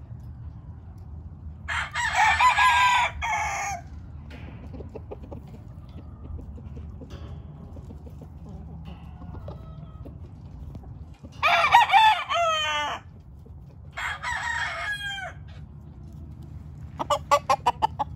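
Gamefowl roosters crowing: three long crows, one early and two past the middle, then a fast run of short clucking calls near the end.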